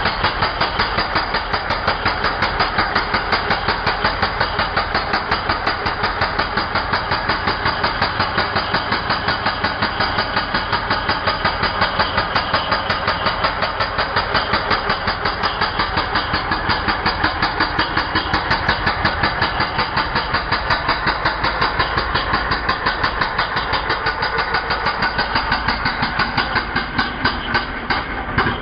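Ingco 16 kg electric concrete breaker hammering continuously in a rapid, steady rhythm. It stops right at the end.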